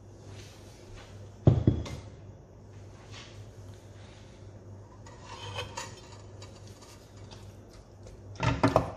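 Cookware handling: a single loud knock about a second and a half in, scattered small clinks, then a quick run of knocks near the end as a wooden spoon stirs raw chicken pieces in an aluminium pot. A faint steady hum runs underneath.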